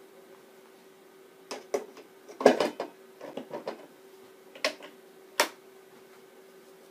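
Hard plastic knocks and clicks as the upper cooking tray of a Tefal ActiFry 2in1 air fryer is set into the bowl and its front handle is clipped on. A quick cluster of clunks comes a little past the middle, and two single sharp clicks follow.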